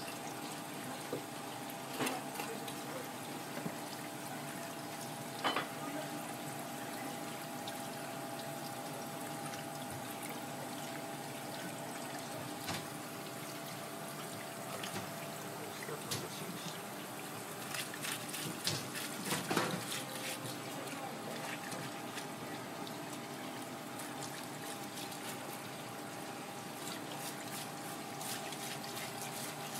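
Tap water running steadily from a flexible sink hose onto a skinned sea snake on a cutting board as it is rinsed, over a steady hum. A few sharp clicks and knocks of handling cut through, several close together about two-thirds of the way in.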